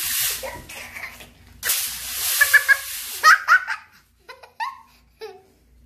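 A young child laughing in short bursts and giggles. For the first three seconds there is a hiss behind it, which cuts off abruptly.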